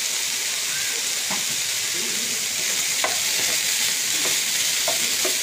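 Soya chunks and baby corn sizzling in oil in a nonstick frying pan, with a few light knocks of a spatula as they are stir-fried.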